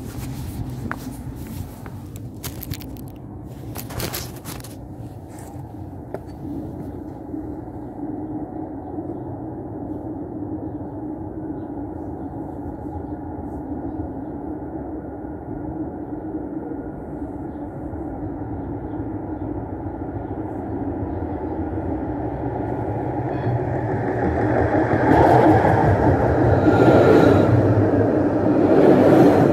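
Tram running on its rails: a steady low rumble with a thin whine that comes in partway through, the whole growing louder toward the end. A few sharp clicks near the start.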